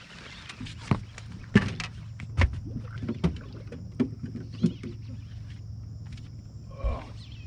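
Steady low hum of a bass boat's electric trolling motor, with a run of sharp knocks and clicks from anglers moving and handling rods on the deck; the loudest knock comes about a second and a half in.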